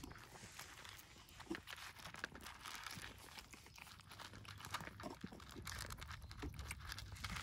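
Cats eating, crunching their food: a faint, irregular run of small crunches and clicks.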